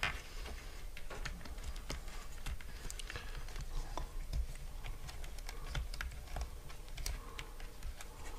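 Wires and the motor housing of a TiMotion riser-recliner actuator being handled as the wires are tucked in: irregular small clicks and taps throughout.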